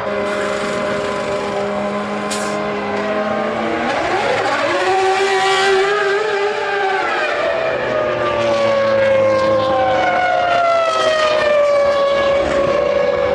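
Formula One cars' 3-litre V10 engines running at high revs, more than one car at once. The pitch rises about four seconds in, then falls in long glides through the second half as cars pass or lift off.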